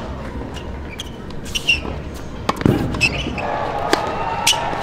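Tennis balls being struck by rackets and bouncing on the court during a practice rally, with shoes squeaking now and then; the firmest hit comes a little over halfway through.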